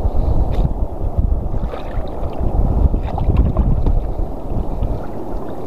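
Wind buffeting the microphone over water lapping and sloshing close by, a deep steady rumble with a few faint ticks.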